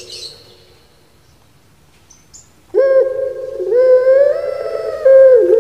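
Puter pelung dove (Barbary dove, Streptopelia risoria) cooing. After a short scratchy noise at the very start and a quiet pause, a long loud coo begins about three seconds in, made of several linked notes whose pitch slides up and holds.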